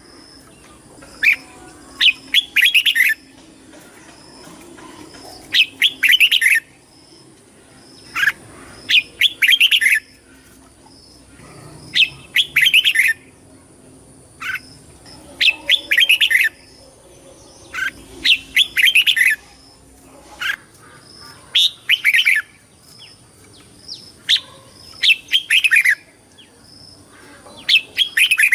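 Red-whiskered bulbul singing: short, bright, warbled phrases repeated every two to three seconds.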